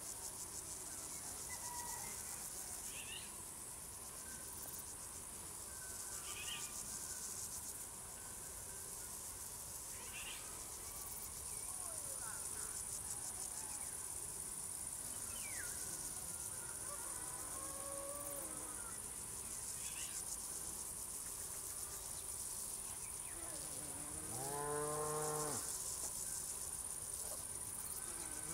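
Dense, steady high-pitched chorus of crickets stridulating in a grass meadow, with a few scattered short chirps. A short low-pitched call sounds near the end.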